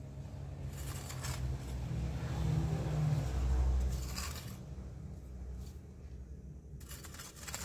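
A long-handled tool scraping and digging into dry soil in several short strokes: about a second in, after about four seconds, and near the end. Under them a deep rumble swells to the loudest point in the middle, then fades.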